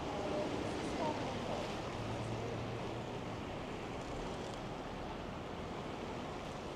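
Heavy street traffic: a steady rush of cars passing, with tyre hiss on a wet, slushy road and a low engine hum for a second or so about two seconds in.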